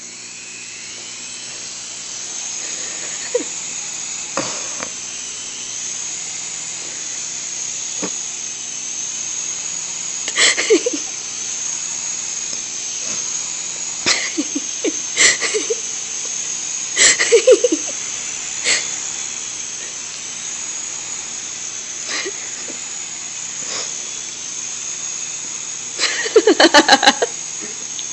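Small radio-controlled helicopter running with a steady high-pitched whine from its motor and rotor, spinning up over the first couple of seconds. Sharp clicks and knocks come now and then, with a quick rattle of strikes near the end.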